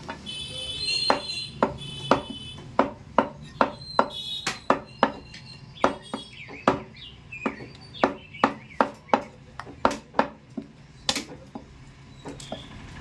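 Butcher's cleaver chopping fresh mutton in quick, regular strokes, about two to three a second, with brief high tonal sounds in the first couple of seconds.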